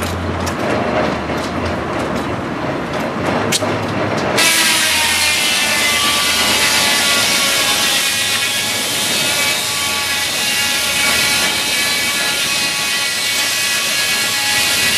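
Circular sawmill running. The log carriage rumbles and clacks along its track toward the spinning blade, and from about four seconds in the large circular saw blade is cutting lengthwise through the timber, with a steady ringing whine of several tones over the hiss of the cut.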